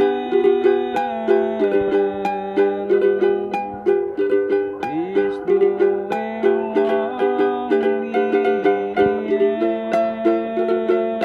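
Small ukulele strummed in a steady rhythm, chords changing every second or so, with a man singing along in long held notes.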